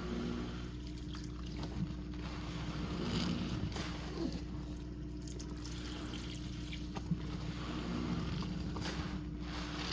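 Washing machine running with its drum full of dish-soap suds: a steady motor hum under water sloshing and trickling, with a second tone that comes and goes every few seconds.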